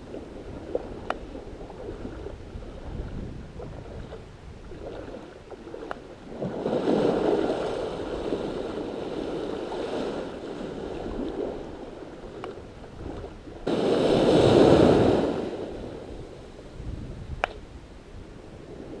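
Small surf waves washing up over sand, with wind buffeting the microphone. The wash swells twice, about a third of the way in and again, louder and starting suddenly, about three-quarters through.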